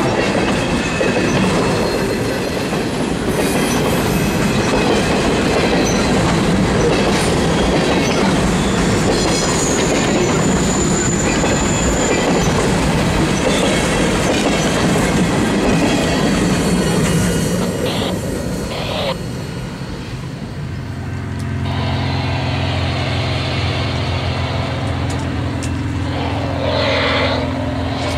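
Freight train of refrigerated boxcars rolling past close by: a steady rumble and clatter of steel wheels on the rails, with a brief high wheel squeal about ten seconds in. About two-thirds of the way through it gives way to a steady low engine hum.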